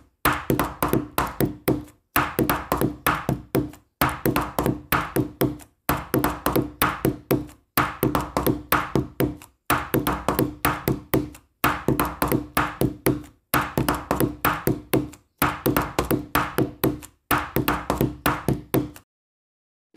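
Background music: a short loop of quick, sharp notes over a steady low tone, repeating about every two seconds with brief gaps between repeats, and stopping about a second before the end.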